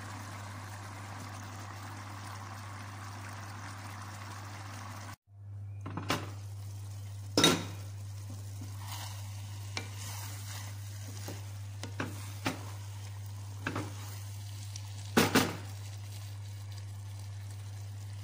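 Pot of basmati rice boiling in its seasoned water, a steady bubbling. About five seconds in the sound cuts, and a spoon then stirs the cooked rice, scraping and knocking against the pot several times over a steady low hum.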